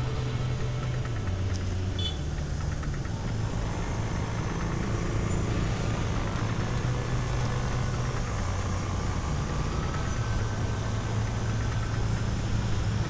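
Motor scooter engine running at low speed in slow, congested traffic, a steady low hum whose pitch shifts slightly a few times as the throttle changes, over road and wind noise.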